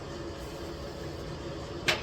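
A steady mechanical hum with one sharp click near the end.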